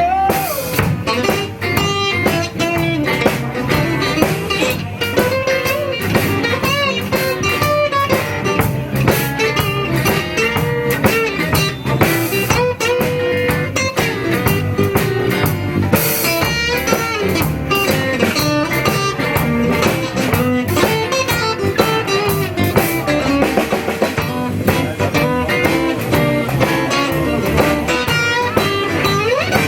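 Blues band playing an instrumental break: a guitar lead with bending notes over drum kit, with no vocals.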